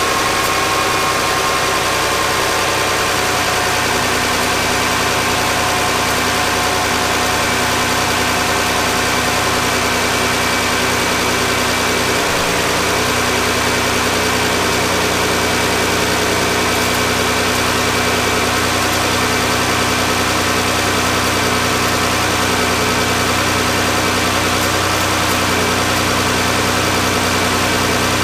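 Chrysler 3.6 Pentastar V6 in a Dodge Grand Caravan idling steadily as it warms up on its first run after an oil filter housing and oil cooler leak repair. Its note shifts a little in the first few seconds, then holds even.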